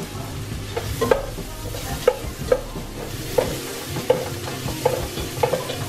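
Spatula stirring and knocking against a stovetop pot of food sizzling in butter, with about ten irregular clinks over a steady sizzle.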